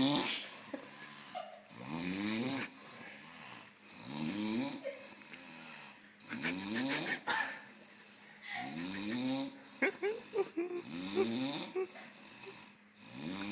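Heavy snoring, one rasping snore about every two seconds, each rising in pitch, with a few shorter, choppier snores around ten seconds in.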